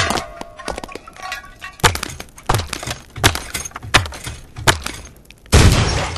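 Cartoon sound effects of a body tumbling down stone stairs: a run of six sharp bumps about two-thirds of a second apart, then a louder crash near the end as it lands at the bottom.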